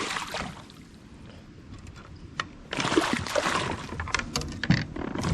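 A freshly landed tiger muskie thrashing at a kayak: water splashing with knocks and rattles of gear. It is quieter at first and grows louder and busier from about halfway through.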